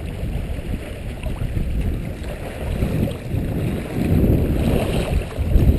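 Wind buffeting the microphone over the wash of river water: a low, steady rumbling noise that grows louder about four seconds in.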